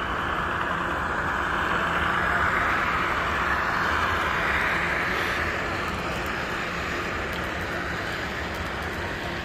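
HO scale model train running on the layout track: a steady rolling hum of wheels on rail and motor, swelling a little a few seconds in.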